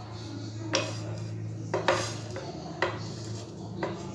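A spatula knocking and scraping against a nonstick frying pan while stirring sugar that is melting dry into caramel: five sharp knocks, roughly one a second, over a steady low hum.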